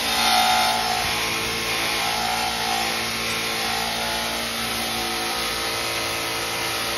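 Grinder running a 320-grit sanding mop against a metal cowbell: a steady motor hum under a loud abrasive grinding hiss, a little louder in the first second.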